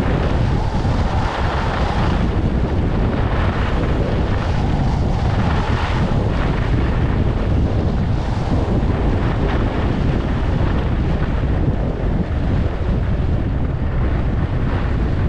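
Wind buffeting the microphone while skiing downhill at about 50 km/h, a steady low rumble, with the hiss of skis on groomed snow swelling now and then on the turns.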